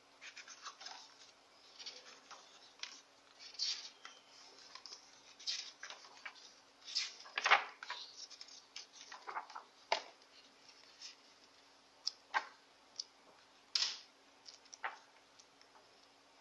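Paper pages of a hardcover book being turned and handled by hand: irregular rustles and crackles, the loudest about halfway through.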